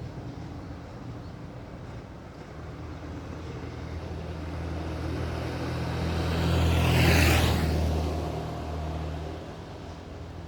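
A motor vehicle passing by: an engine hum that builds over several seconds, is loudest about two-thirds of the way in with a brief rush of hiss, then fades away.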